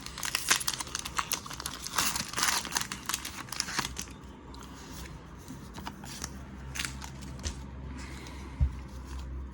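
Foil wrapper of a Pokémon card booster pack crinkling and tearing open, with dense crackling for about four seconds, then softer scattered clicks as the cards are handled.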